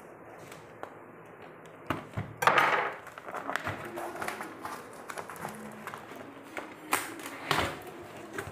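Packing tape being torn off a cardboard box, with the cardboard rustling and tapping in between. The loudest rip comes about two and a half seconds in, and two more come near the end.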